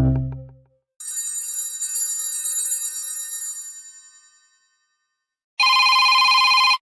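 Android 14 Go Edition phone sounds. A musical ringtone fades out, then about a second in a bright, shimmering high chime rings out and dies away over about three seconds. Near the end a loud, steady electronic tone of several pitches sounds for about a second and cuts off suddenly.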